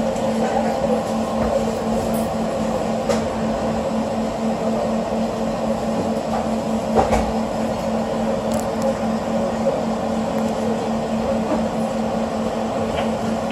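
Vancouver SkyTrain car standing still in a tunnel: a steady hum with a low tone and a higher tone over a constant hiss, and a few faint clicks.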